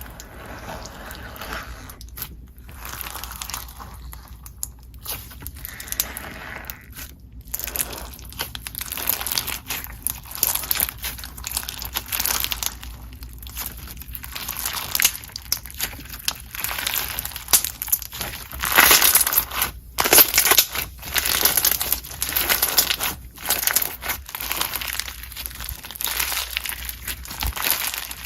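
Hands squishing and pressing slime, making a dense run of crinkly, crackling pops that grow louder and sparser from about a third of the way in.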